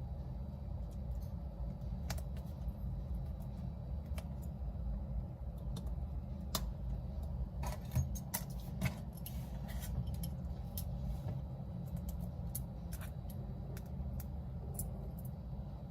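Small repair tools clicking and tapping against an iPhone X's parts, in scattered sharp clicks with a cluster about halfway through, over a steady low hum.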